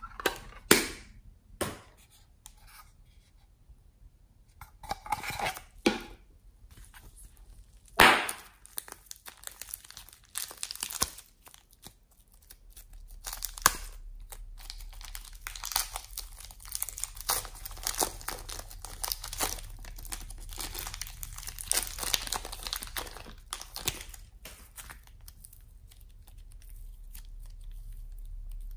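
Pink fluffy slime being stretched and pulled apart by hand, a dense run of crackly tearing sounds in the middle of the stretch that eases off near the end. A few sharp knocks come in the first seconds and one about eight seconds in as a plastic slime case is handled.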